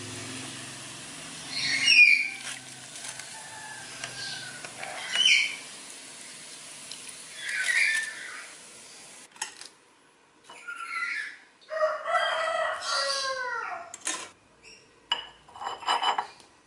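Hot oil sizzling steadily as meatballs deep-fry, with chickens calling over it. The sizzle cuts off about nine seconds in, leaving hens clucking and a rooster crowing.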